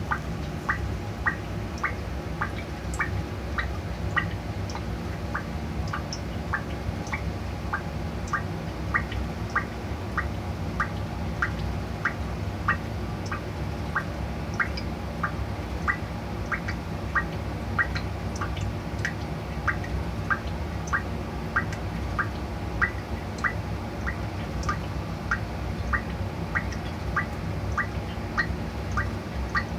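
Water dripping onto a bathroom floor: a steady, even run of short plinks at nearly two a second, over a low steady hum.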